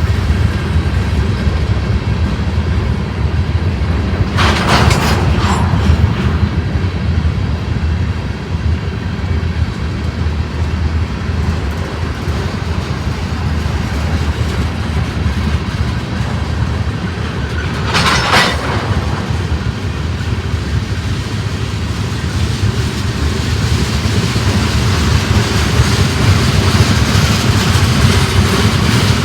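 Freight train rolling past with a steady, loud rumble of wheels on rail and a clickety-clack of the cars. Two brief, sharper noises cut through about five seconds in and again near the middle.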